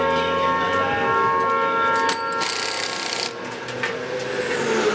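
Race-bike wheel change in the pits: a pneumatic impact wrench spins with a steady whine, then air hisses for about a second, with metallic clinks of tools and wheel parts.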